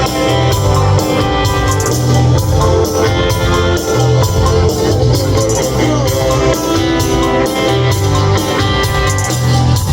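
Rock band playing an instrumental passage between sung lines: guitar, bass and drums with a steady beat.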